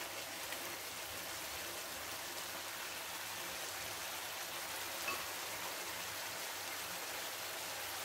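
Chicken and tomato masala sizzling and bubbling steadily in a frying pan on a gas stove at medium-high heat, as the juices that the chicken and tomatoes have released cook down. A light click about five seconds in.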